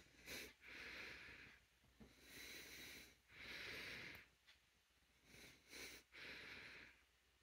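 Faint breathing from a person: several slow, airy breaths in and out, each lasting under a second.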